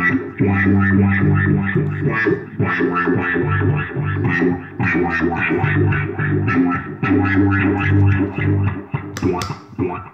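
Effects-processed bass line played back from a loop pedal, with held low notes that step in pitch under a busy rhythmic upper layer. It breaks off briefly a few times and stops just before the end, after a sharp bright hit.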